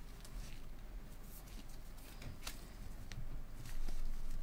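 Trading cards handled in gloved hands: soft rustling with a few faint, scattered clicks as the cards are moved, and somewhat louder handling near the end.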